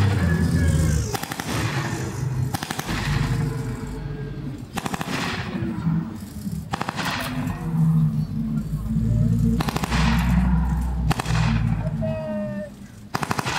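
Automatic gunfire with blank rounds, machine guns and rifles firing short rapid bursts every second or two, over a steady low engine rumble from armored vehicles.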